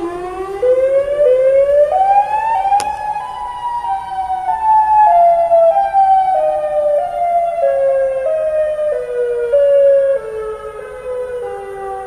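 Outdoor tornado warning siren sounding. Its pitch climbs in uneven steps over the first three seconds or so, then steps slowly back down.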